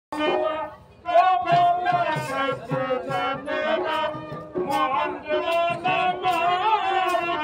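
Harmonium playing a folk melody with drum accompaniment. The music dips briefly about a second in, then carries on with a steady beat.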